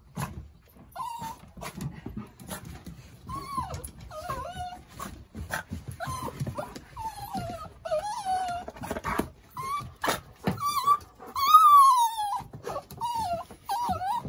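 Tricolour Cavalier King Charles Spaniel giving high, cat-like mewing whines of excitement, one short gliding cry after another, with a longer, louder falling cry about eleven seconds in. Sharp clicks and taps come in between the cries.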